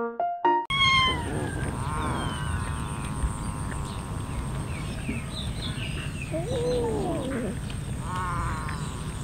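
Several domestic cats meowing over steady background noise. A lower, drawn-out meow rises and falls just past the middle.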